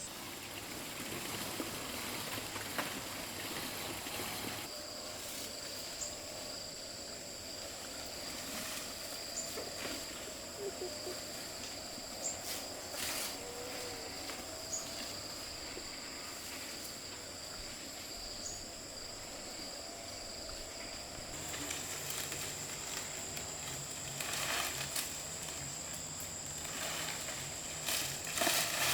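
Steady high-pitched insect trilling, with scattered light clicks and knocks throughout and a few louder knocks near the end.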